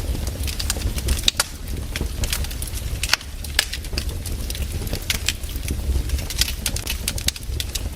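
Burning firewood crackling, with sharp pops at irregular intervals over a steady low rumble.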